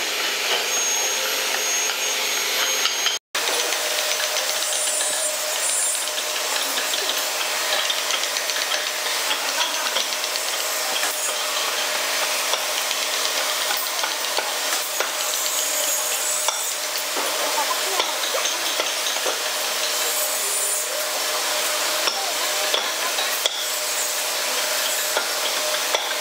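Thin pointed steel carving tool scraping and picking at a small hardwood carving held in a metal vise: a continuous fine scratching full of tiny clicks. It cuts out for an instant about three seconds in.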